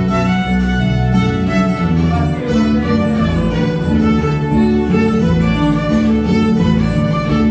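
Live string band: two violins playing the melody in unison over a harp and an electric bass guitar, with strong steady bass notes underneath.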